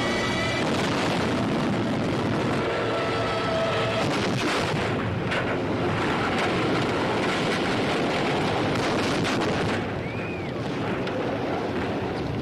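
Air-raid sound effects: a continuous rumble of bomb blasts and anti-aircraft fire, easing slightly about ten seconds in.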